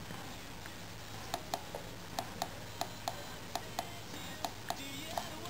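Small tactile push-buttons on a homemade MP3 player clicking as they are pressed again and again to step the volume, about a dozen sharp clicks starting about a second in, often in quick pairs.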